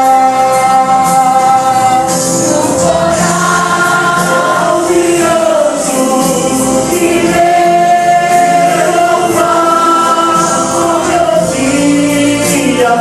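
Gospel vocal group singing a hymn in harmony, holding long notes.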